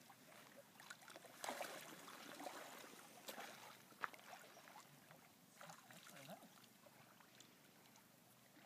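Faint splashing and trickling of lake water around a floating skin-on-frame canoe, with small clicks and one sharp light knock about four seconds in.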